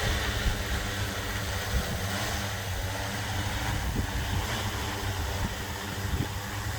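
Agricultural crop-spraying drone's rotors running with a steady whirring hum as it comes down to land.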